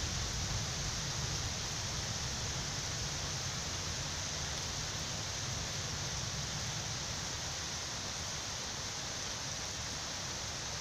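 Steady hiss of summer rain falling on a park's grass, paths and trees, with a low rumble underneath; slightly louder at the start, then even.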